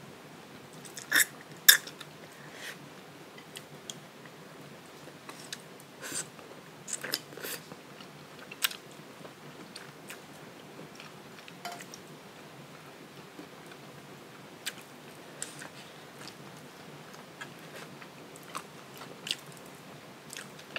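A person eating close to the microphone: chewing and biting, with scattered sharp clicks and smacks, two loud ones just over a second in and a cluster a few seconds later.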